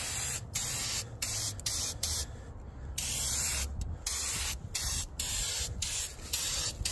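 Turbo aerosol spray-paint can hissing out black paint in a string of short bursts, with one longer spray about three seconds in.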